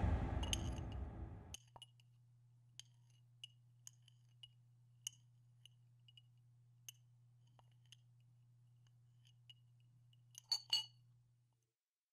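Sparse, faint clinks of tableware (a metal spoon on china, glassware on the table) about a second or so apart, with a louder pair near the end. A faint low hum runs under them.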